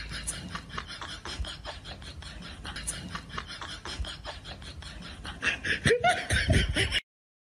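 A person laughing, first in quick, soft, breathy snickers and then louder for a moment near the end, before the sound cuts off.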